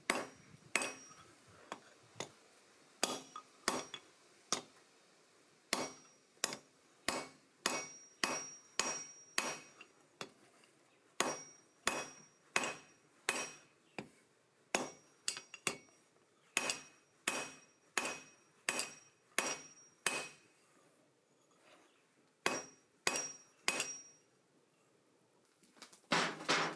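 Hand hammer forging a piece of coil spring steel on an anvil, flattening one end: a steady run of ringing metal-on-metal strikes, about one and a half a second, broken by a few short pauses.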